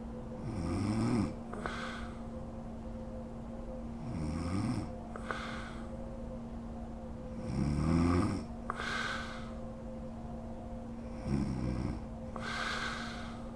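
A sleeping woman snoring: four low snores about three and a half seconds apart, each followed by a softer hiss of breath, over a steady background hum.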